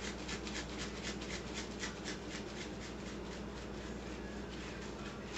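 Taco seasoning being shaken from its container into a bowl of dressing: a quick, even run of soft ticks and rustles that keeps going.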